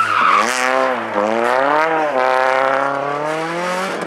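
Renault Clio rally car's engine revving hard as it slides through a corner and accelerates away. The revs dip, then climb, drop sharply at a gear change about two seconds in, and climb again in a longer pull. A brief hiss of sliding tyres comes near the start.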